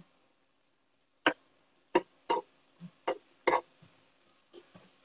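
A utensil knocking against a frying pan of sautéed cabbage while it is stirred and served: about eight sharp, irregularly spaced knocks, the loudest in the middle and a couple of fainter ones near the end.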